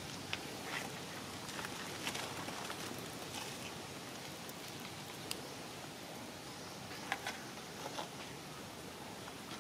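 Steady outdoor background hiss with a few faint, scattered clicks and rustles.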